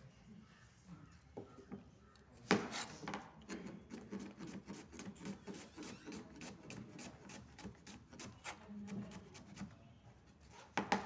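Kitchen knife slicing a red onion on a plastic cutting board: a quiet stretch of peeling, then a steady run of quick knife strokes against the board, about four or five a second. Two louder knocks, one as the chopping starts and one near the end.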